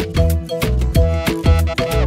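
Background music with a steady beat, about two beats a second, over a bass line and short repeated pitched notes.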